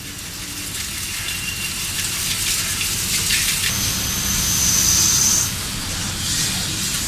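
WFL M60 MillTurn machining a crankshaft: a rushing spray of cutting coolant with the sound of metal cutting, growing louder. A high steady whine comes in about four seconds in and cuts off a second and a half later.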